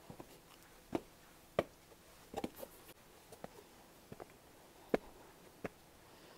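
Faint footsteps: a handful of sharp, separate steps at an uneven pace, about one a second, as someone walks up to higher ground.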